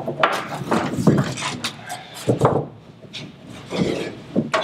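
A thick rope being fed around the edge of an upturned boat hull and hauled back: irregular rubbing and scraping with a few knocks against the hull.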